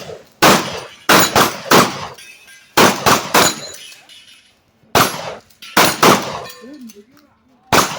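A shotgun fired fast at steel plate targets, about a dozen shots in quick strings with short pauses between, the plates ringing as the shot strikes them.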